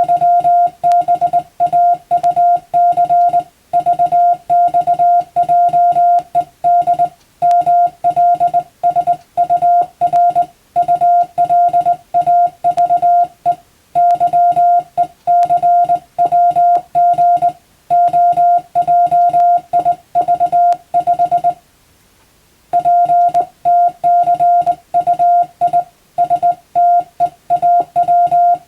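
Morse code (CW) sent as a single steady tone of about 700 Hz, keyed on and off in quick dots and dashes, spelling out Latin-alphabet telegram practice text. The keying breaks off for about a second about three quarters of the way through, then resumes.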